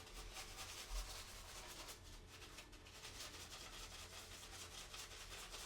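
Shaving brush loaded with soap being worked over a stubbly face to build lather, the bristles scrubbing in quick, repeated, scratchy strokes. The sound is faint.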